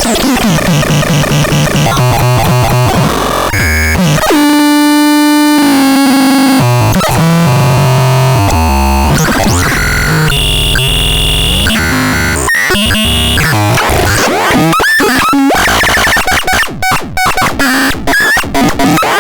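Synthesizer being played and its sounds changed: a mix of noisy, harsh tones and shifting pitches, with a held buzzy note rich in overtones about four seconds in. The sound steps and glides between pitches and turns choppy and stuttering near the end.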